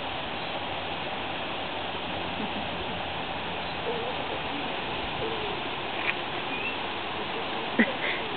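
Steady rush of running water, with a short high chirp and a brief sharp click near the end.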